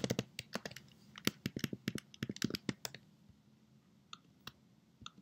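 Keys and clicks on a computer keyboard, tapped in quick irregular runs for about three seconds, then two lone taps near the end, as code is pasted and tidied in an editor.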